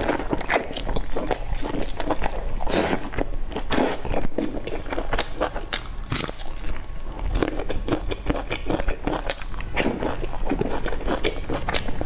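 A person chewing and biting soft, sauce-soaked fried dough sticks (youtiao in sesame sauce) up close, with many irregular wet mouth clicks and smacks.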